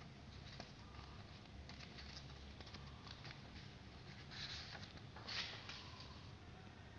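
A sheet of printer paper rustling and crinkling as it is handled, with two short, louder rustles about four and five seconds in, over a faint low hum.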